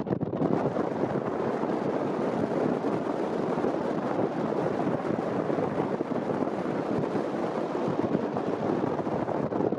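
Wind buffeting a microphone held out the side of a moving open car: a loud, steady rushing noise with no clear engine note above it.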